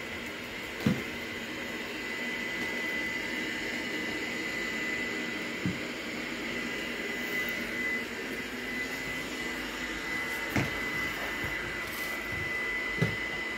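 Vacuum cleaner running steadily: a constant whir with a high whine, with a few short knocks scattered through.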